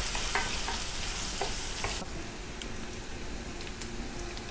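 Food sizzling as it fries in a hot pan, with a few short clicks of a utensil against the pan; the high hiss of the sizzle drops off sharply about two seconds in.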